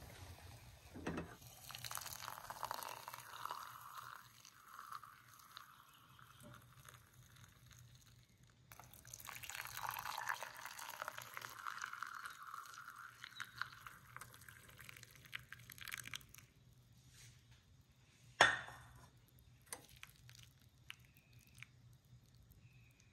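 Milky tea being poured from a pan through a metal mesh strainer into a mug, in two stretches of pouring. A single sharp knock follows a couple of seconds after the second pour.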